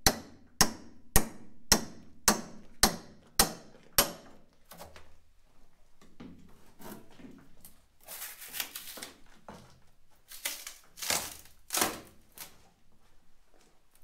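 Hand demolition of a rotten wooden stringer and its thin fiberglass skin: sharp blows of a steel bar or hammer, about two a second, for the first few seconds, then scraping and ripping as the laminate is pried up and torn away.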